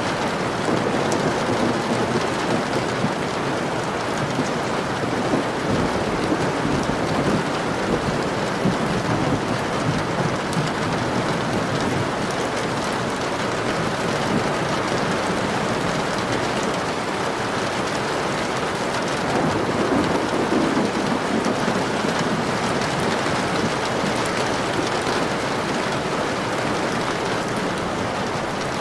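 Steady rain falling, with low rumbles of thunder about six seconds in and again around twenty seconds.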